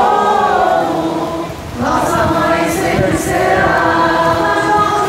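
Crowd of people singing a hymn together in long held notes, with a brief break between phrases about a second and a half in.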